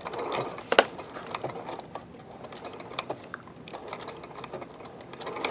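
Sewing machine stitching briefly, with a sharp click under a second in, then scattered light clicks and ticks from the machine as the threads and cording foot are handled.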